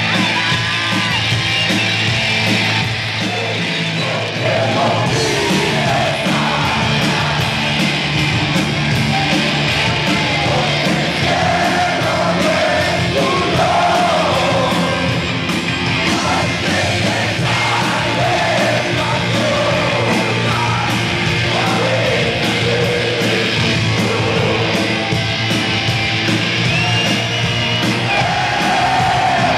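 Live rock band playing with two electric guitars, electric bass and drum kit, and a male lead singer singing over them.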